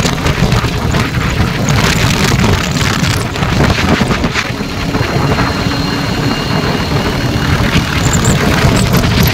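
Steady wind rumble on the microphone, with engine and road noise from riding a motorcycle along a highway as army trucks pass close by.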